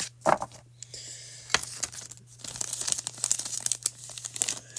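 Foil Pokémon booster pack wrapper crinkling and tearing as it is handled and opened. It starts with a few sharp crackles, then a dense crinkling runs on for several seconds.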